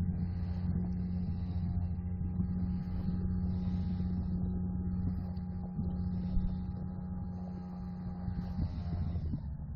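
A small boat's motor running steadily at an even speed, its note shifting slightly near the end.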